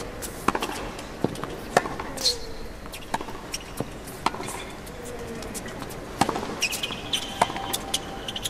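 Tennis rally on a hard court: sharp racket strikes on the ball and ball bounces, one every half second or so, some louder than others.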